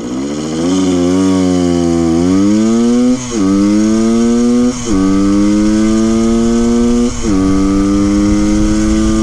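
1974 Honda MT250 Elsinore's single-cylinder two-stroke engine accelerating hard through the gears: the pitch climbs, then drops with a brief lull at each of three upshifts, and climbs again after each one.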